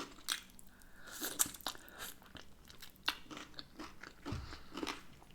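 Close-up eating sounds: a person biting into and chewing a breaded chicken wing, with irregular sharp crunches and crackles of the coating.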